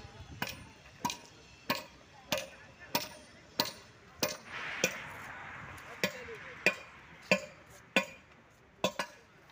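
Footsteps on stone paving at an even walking pace, a sharp tap about every 0.6 seconds, pausing briefly about halfway through while a soft hiss rises and fades.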